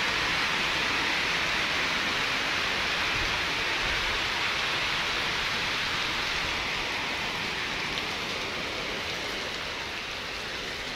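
Heavy rain pouring down steadily onto standing water and paving, a continuous even hiss that eases slightly toward the end.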